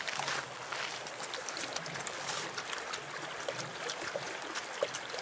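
Running water of a small stream or ditch trickling steadily, with scattered light splashes and drips.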